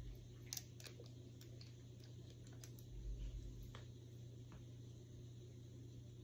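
Quiet room with a steady low hum, a few faint light clicks and two soft low bumps, one at the start and one about three seconds in.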